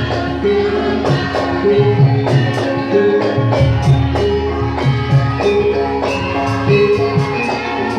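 Live traditional dance music: drums and jingling percussion beat a steady rhythm under a short melodic figure that repeats about once a second over a held low drone.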